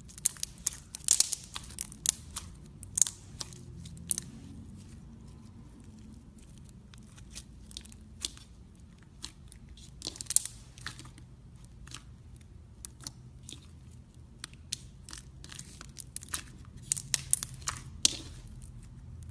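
Slime being squeezed and worked by hand, crackling with sharp clicks and pops that come thickest about a second in, around ten seconds in and near the end, with scattered clicks between.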